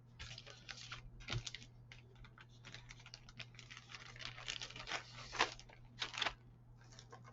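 Plastic model-kit sprues and their plastic packaging being handled: irregular crinkling and light plastic clicks, with a few louder crackles about one and a half seconds in and again near five and six seconds.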